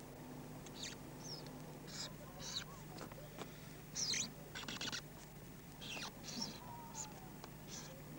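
Felt-tip marker squeaking on paper as letters are written: a series of short, irregular high squeaks, some sliding in pitch, over a faint steady hum.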